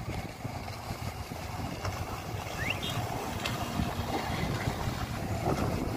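Jet ski engine running out on the water, a steady rumble that slowly grows louder as one jet ski speeds across. A short rising chirp comes a little before the middle.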